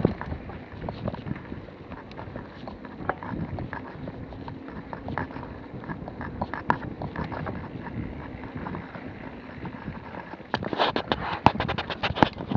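Mountain bike rolling down a dirt singletrack, heard from a handlebar-mounted camera: tyre noise with frequent clicks and rattles from the bike over bumps. About ten seconds in, the clattering gets denser and louder as the bike rides onto rocky ground.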